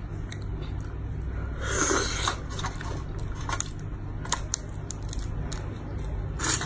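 Cooked crab being pulled apart by hand: many small sharp clicks and cracks of shell, with a longer crunching tear about two seconds in and another near the end. A steady low hum runs underneath.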